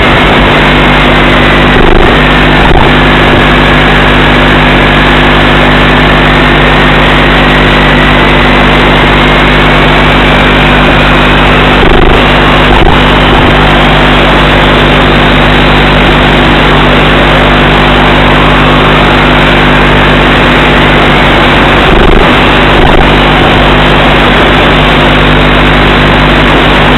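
Loud, steady hiss with a low electrical buzz: static on an analog FPV video link's audio channel. Faint whistling tones slide slowly up and down in pitch, and a brief crackle comes about every ten seconds.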